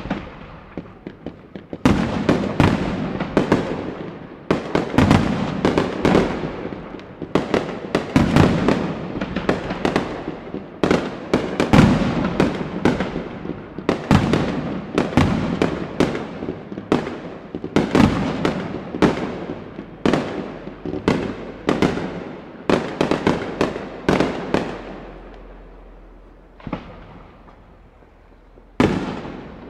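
Fireworks display: a rapid barrage of aerial shell bursts, with sharp bangs echoing one after another. The bursts start about two seconds in and come thick and fast, then thin out to a couple of last bangs near the end.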